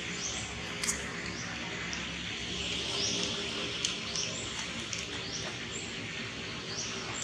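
A bird chirping: short, high, rising chirps repeated about once a second over a steady outdoor hiss, with a couple of faint clicks.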